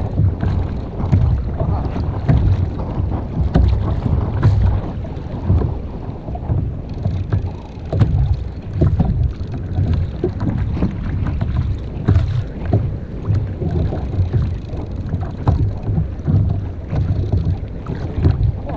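Wind buffeting the microphone over water slapping against the hull of a sit-on-top kayak: a restless low rumble with scattered small knocks and splashes.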